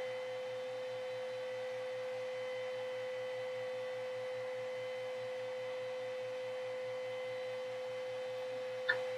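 Steady electrical hum: one even high tone over a faint low drone that pulses about five times a second.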